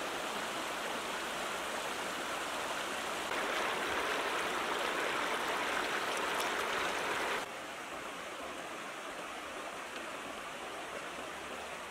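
Shallow rocky stream running over stones: a steady rushing of water. It grows louder about three seconds in and drops back abruptly about seven and a half seconds in.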